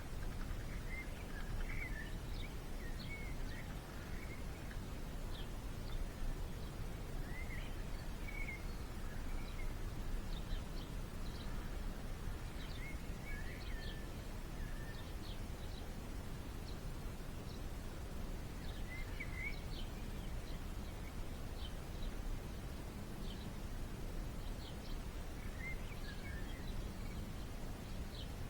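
Wild songbirds calling: one bird repeats a short warbled phrase roughly every five to six seconds, while short high chip notes come and go throughout, over a steady low background rumble.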